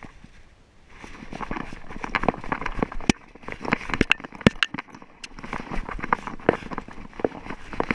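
A small dog's paws scrabbling and stepping over loose rock and gravel, heard very close, as a quick, irregular run of clicks and crunches with a short lull about a second in.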